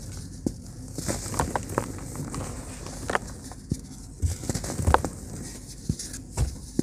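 Set pure cement blocks crushed and crumbled by hand: an irregular run of gritty crunches and cracks, with crumbs and powder pattering down. A few sharper cracks with a dull thud, the loudest about five seconds in.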